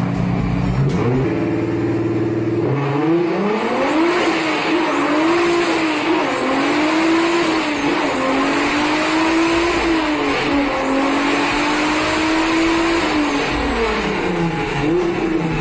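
An engine revving hard. Its pitch climbs about three seconds in, then wavers up and down at high revs, drops near the end and climbs again.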